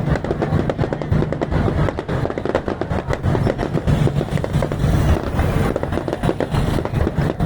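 Fireworks display: dense, rapid crackling and popping, over background music.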